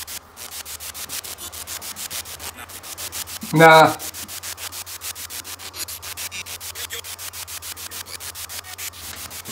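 Spirit box sweeping through radio stations: rapid, choppy static that pulses about seven or eight times a second.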